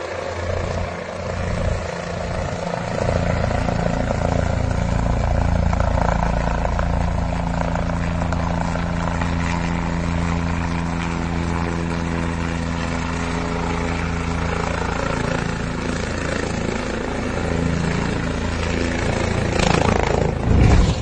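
Helicopter rotor and engine running close by, a steady deep beating drone with a hum of several steady pitches over it. Near the end a loud surge of noise as the helicopter comes down in a crash landing.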